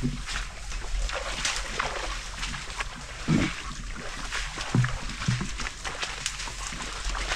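Footsteps and rustling brush as people push through tall grass and undergrowth, with many short swishes and snaps.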